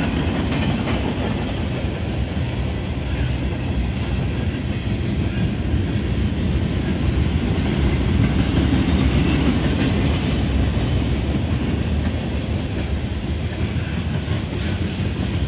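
Freight train of boxcars, tank cars and covered hoppers rolling steadily past: a loud continuous rumble of steel wheels on rail, with faint scattered clicks.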